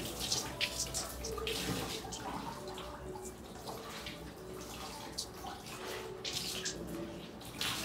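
Water splashing and sloshing in bursts as wet clothes are scrubbed and wrung out by hand over a sink, with short irregular splashes between quieter stretches.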